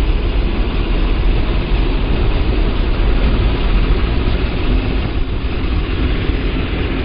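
Motorcycle riding at steady road speed, heard from a helmet-mounted camera: heavy wind rumble over the microphone with the engine's steady drone underneath.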